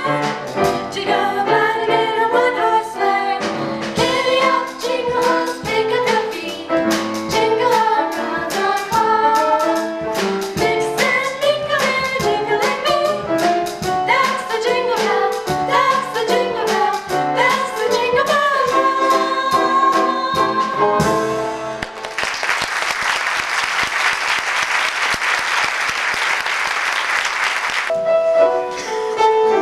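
Three girls singing a song together at microphones over instrumental accompaniment. The song ends about 21 seconds in and is followed by about six seconds of audience applause, then the next song begins near the end.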